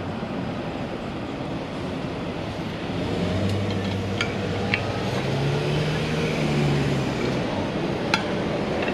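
Street traffic noise, with a car engine passing close by, swelling from about three seconds in and fading near the end. A few light clicks come over it.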